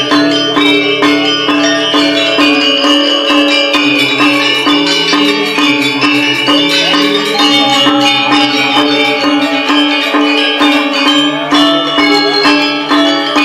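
Balinese gamelan ensemble playing a tabuh kreasi: bronze metallophones ring in fast, dense strokes over a steady low pulse.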